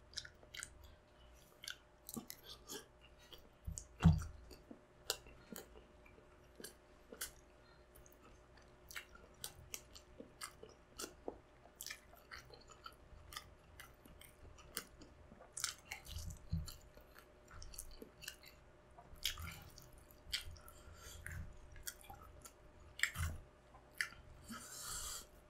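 Chewing a mouthful of balut (boiled fertilized duck egg) with chopped chili peppers: a steady run of soft, wet mouth clicks and smacks, with a few louder low thuds along the way.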